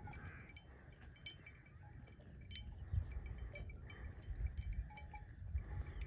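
Small livestock bells tinkling in short, irregular light pings over a low, uneven wind rumble on the microphone.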